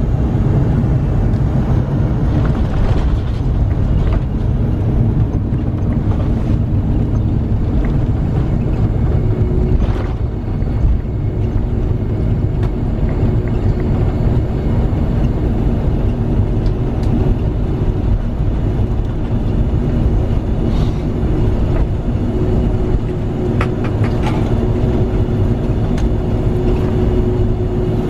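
Cabin noise of a Boeing 747-400 rolling out on the runway after landing: a steady low rumble from the wheels and engines with a steady hum. A faint high whine falls away near the start, and a few light rattles come later.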